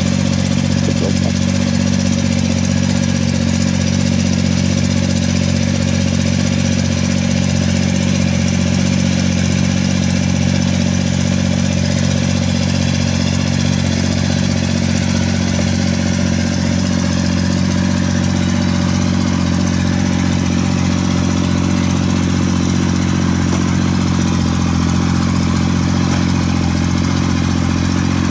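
Small crawler-tracked rice-hauling tractor's engine running steadily under load as it drives along, carrying a heavy stack of rice sacks.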